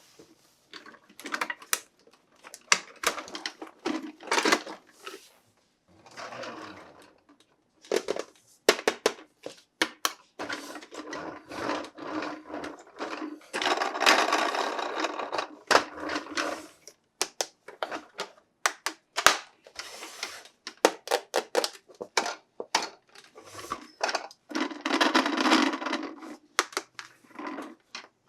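Hands handling plastic toys and packaging: irregular clicks and taps, with longer stretches of rustling and crinkling.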